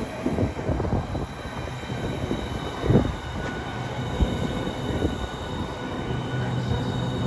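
Southeastern Class 395 'Javelin' electric multiple unit standing at the platform, its onboard equipment humming with a steady low drone and thin high whines. A loud knock about three seconds in.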